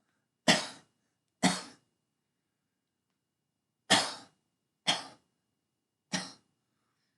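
A person coughing: five short, sharp coughs, one pair, then after a pause another pair, then a single last cough.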